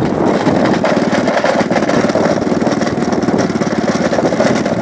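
Small motorcycle engine running steadily at a constant pace while riding, its rapid even firing pulses continuous throughout.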